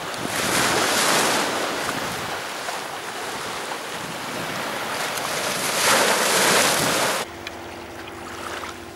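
Small sea waves breaking and washing up a sand-and-pebble beach, surging twice, with wind on the microphone. About seven seconds in it cuts off suddenly to a much quieter stretch with a faint steady hum.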